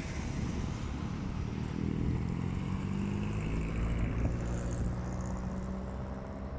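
A vehicle engine running steadily as traffic passes, with wind rumbling on the microphone.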